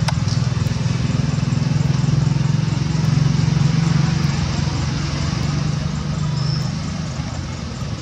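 A motor vehicle engine running steadily, a low pulsing drone that swells about three seconds in and then slowly fades.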